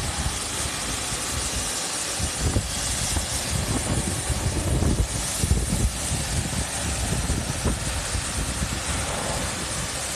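Pressure washer spraying: a steady hiss of the water jet over a low, unsteady motor drone.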